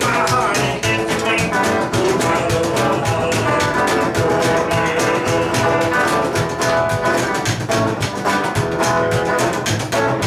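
Rockabilly band playing an up-tempo song live: hollow-body electric guitar through an amp over a fast, steady drum beat.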